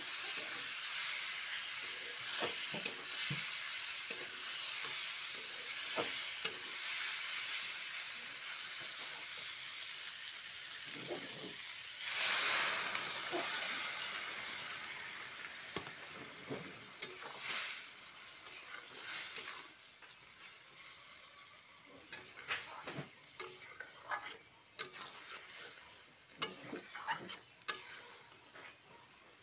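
Small fish and aubergine sizzling as they fry in a metal kadai, stirred with a metal spatula that scrapes and knocks against the pan. About twelve seconds in, a short, louder surge of sizzling as a little water goes into the hot pan. After that the sizzle fades, and the spatula scrapes and taps stand out.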